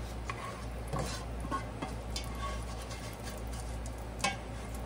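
Plastic slotted spoon scraping and knocking against the bottom and sides of a stainless steel pot while scooping cooked bacon out of its grease: a handful of separate clicks and knocks, the sharpest about four seconds in.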